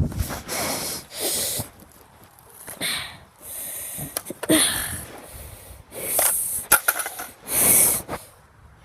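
Noisy breaths close to the microphone, coming in half-second bursts, with rustling and a few sharp clicks about seven seconds in.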